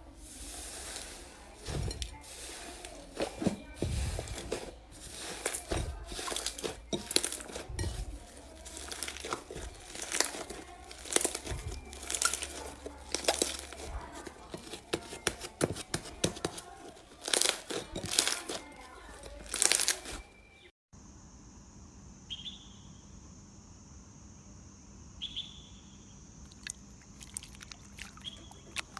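Slime being squeezed and poked by hand, giving dense, irregular crackling and popping. A little past two-thirds of the way through it cuts off suddenly to a quieter passage with a steady high hum and a few soft clicks.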